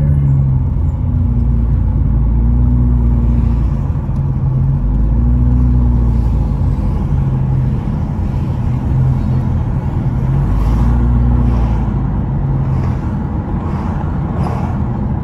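Car engine and road noise heard from inside a moving car: a steady low hum whose pitch drops and rises again a few times as the car slows and speeds up, with tyre and wind noise growing a little in the second half.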